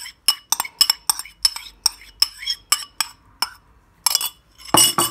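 Metal spoon clinking against a small bowl as beaten egg is scraped out of it: a run of sharp clinks, about three a second, then two louder clinks near the end.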